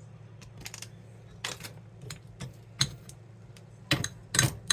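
Utensil clinking and tapping against a cat food dish while food is portioned out: a scatter of sharp light clicks, with the loudest cluster about four seconds in.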